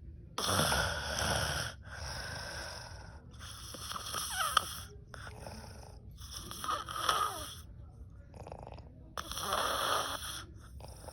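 A sleeping woman snoring loudly: a run of noisy breaths in and out, about one every second and a half, a few of them with a falling whistle.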